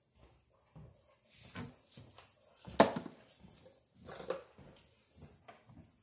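Wire strippers working a short ground wire, with rustling and small clicks of wire and tool handling and one sharp snap about three seconds in.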